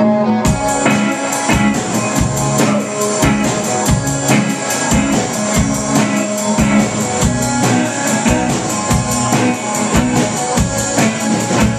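Live rock band playing: electric guitars with a drum kit that comes in about half a second in, keeping a steady beat on cymbals and kick drum.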